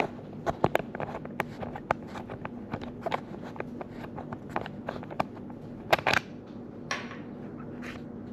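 Handling noise from an action camera and its mount being taken apart: a string of irregular small clicks and taps, loudest about six seconds in, over a faint steady hum.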